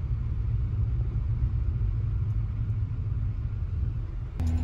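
Steady low rumble of a car's engine and tyres heard from inside the cabin while driving slowly along a narrow, rough road. About four seconds in it switches abruptly to a steadier hum.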